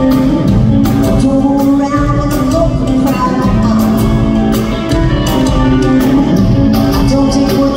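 Live pop-rock band with electric guitar and drums playing a steady beat while a woman sings the lead vocal, recorded from the audience in a concert hall.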